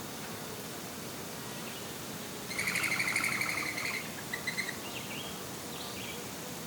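A songbird gives a rapid, buzzy trill lasting about a second and a half, then three short chirps and a few faint sliding notes, over the steady hiss of a light breeze.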